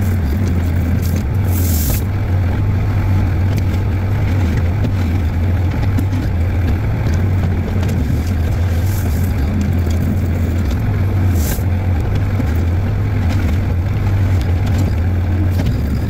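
Mini excavator's diesel engine running steadily under load, heard from the operator's seat, with a few brief scrapes as the bucket works a gravel pile.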